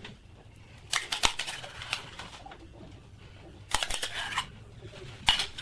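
A serving spoon scraping and clinking against a small saucepan as baked beans are spooned out onto plates, in three short bouts of scrapes and taps: about a second in, around four seconds in, and near the end.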